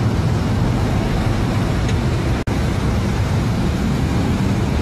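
Steady road noise of vehicle engines and passing traffic, with a low engine hum underneath, cut by a momentary dropout about two and a half seconds in.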